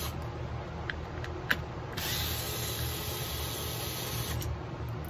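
DeWalt cordless screwdriver running for about two and a half seconds in the middle, backing a screw out of the bottom of a chainsaw's rear handle. Before it, a few small clicks of the bit being set on the screw.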